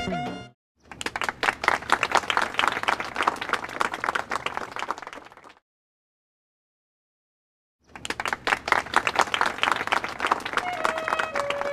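Applause from a crowd, in two stretches of dense clapping with about two seconds of dead silence between them.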